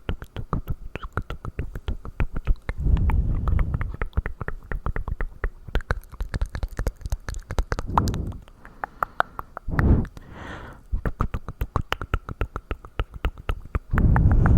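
Close-miked mouth sounds: a rapid, uneven stream of wet mouth clicks and smacks, broken by longer low, noisy bursts at about three, eight and ten seconds in and again near the end.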